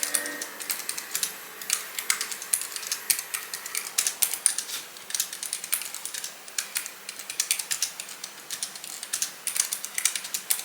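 Typing on a Keychron K3 V2 low-profile keyboard with optical red switches: a quick, irregular run of keystroke clacks, several a second, with no click mechanism.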